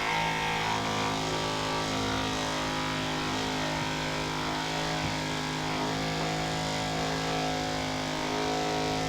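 Handheld percussion massager running steadily against the leg muscles: an unbroken motor hum at one even pitch.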